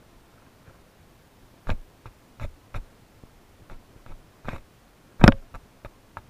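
About a dozen irregular sharp taps and knocks close to the microphone, the loudest about five seconds in: handling noise as the angler works the fly line near the camera.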